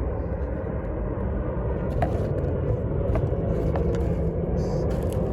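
Steady low rumble of a running vehicle, with a few light clicks and short rustles of handling.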